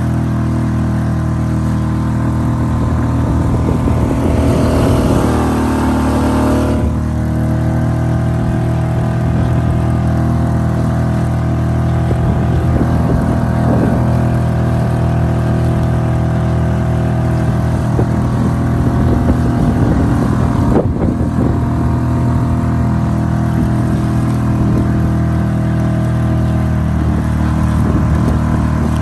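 Suzuki 2.5 hp outboard motor running steadily, pushing the canoe along, with a rush of water and wind noise and a brief shift in engine pitch about five seconds in.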